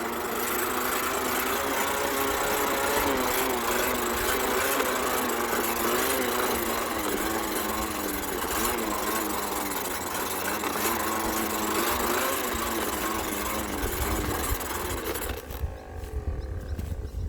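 Toy bubble lawn mower's small motor running with a wavering whine as it is pushed, cutting out near the end and leaving a low rumble.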